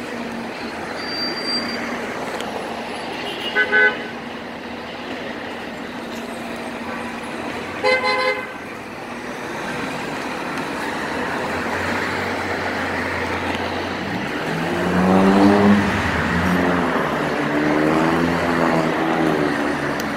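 Busy street traffic with two short car-horn toots, about four seconds apart. In the last few seconds a heavy vehicle's engine runs louder, its note rising and falling.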